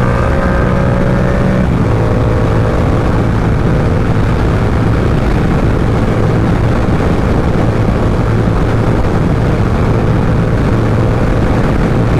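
Yamaha R7's parallel-twin engine running at a steady cruise with heavy wind rushing over the helmet microphone. The engine note rises slightly, breaks briefly a little under two seconds in, then holds steady.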